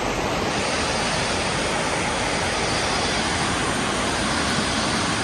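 Shallow jungle river rushing over rocks and rapids, a steady, even rush of water.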